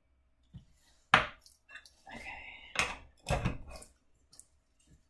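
Kitchen utensils being handled: a sharp knock about a second in, a short scrape, then a run of knocks and clicks as a small spice pot and a measuring spoon are tapped against the bowl and set down on the worktop.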